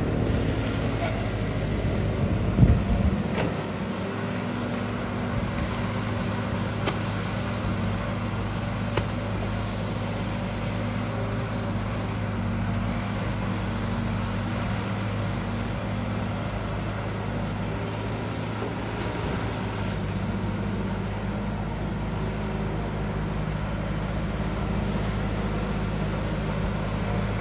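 Diesel engine of a Sumitomo S265 long-reach excavator running steadily as it digs, with one loud knock about three seconds in.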